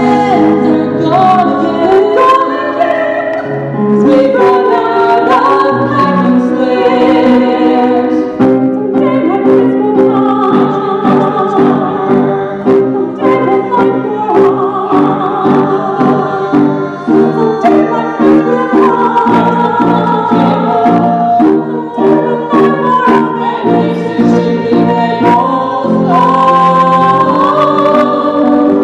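A small mixed group of men and women singing a song in harmony into microphones, accompanied by piano.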